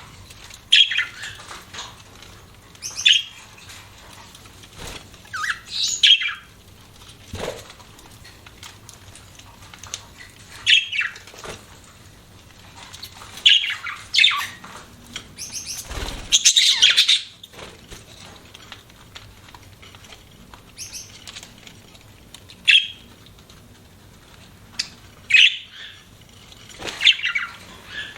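Budgies chirping in short separate calls every second or two, with a longer, busier stretch of calls about halfway through.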